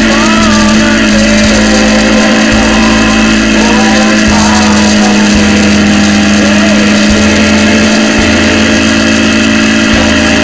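Motorcycle riding at a steady speed, recorded by a camera mounted on the bike: a loud, steady engine drone that holds one pitch, with wind rushing and buffeting over the microphone.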